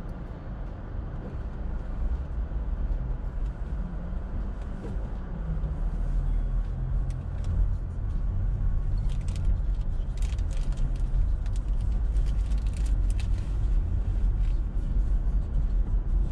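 Car driving on a city street: steady low road and engine rumble that grows louder about six to eight seconds in, with a scatter of short clicks in the second half.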